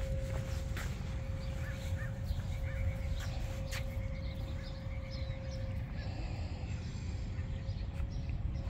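A garbage truck's engine running nearby: a steady low rumble with a constant hum that fades about six seconds in and comes back near the end. Birds chirp briefly over it.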